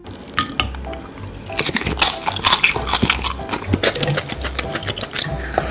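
Close-miked crunching and chewing of crispy Oh!Gamja potato snack sticks coated in melted cheese: a quick run of crisp crunches, thickest from about a second and a half in, over background music.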